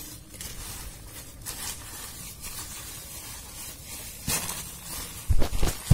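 Hands rustling and scraping through crumbly leaf compost and soil in a grow bag. The leaves have rotted down into compost. A few loud, dull thumps come near the end.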